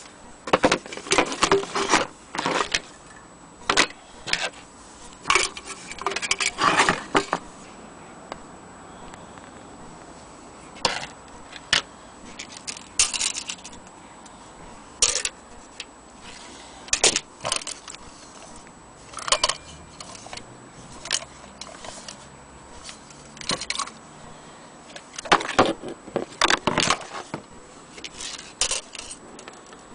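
Old brass lantern being handled: irregular metallic clinks, taps and rattles of its loose parts, in short clusters with pauses between.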